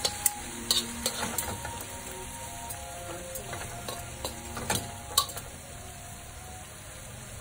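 Octopus, leek and onion sizzling in a hot steel wok while metal tongs toss them, the tongs clicking against the wok several times in the first second and a half and again around five seconds in, then just the steady sizzle.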